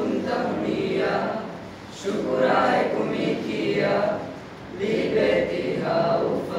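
A mixed group of young male and female voices chanting together in unison from a text, in three phrases with short breaks between them.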